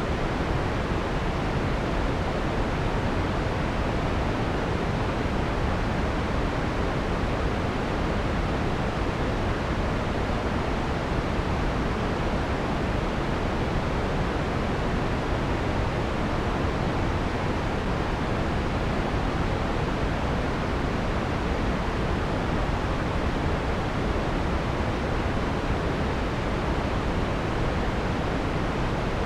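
Steady synthesized white noise, filtered to remove the harsh high frequencies so it sounds soft and full, holding the same level throughout.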